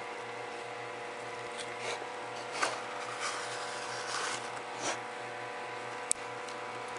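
A mouse scrabbling on newspaper and against a cardboard tube while a hand handles it: a few short, scratchy rustles in the middle, then a sharp click about six seconds in, over a steady electrical hum.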